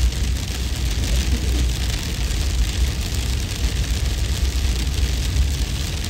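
Continuous hail-and-wind storm noise: a deep, steady wind rumble under an even hiss of hail.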